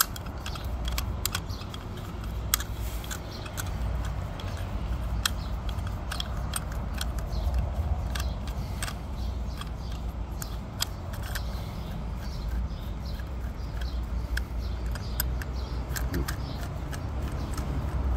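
Screwdriver working the screws on a meter socket's jaw block, with many small sharp metal clicks and taps as tool, screws and jaws knock together. A steady low rumble runs underneath.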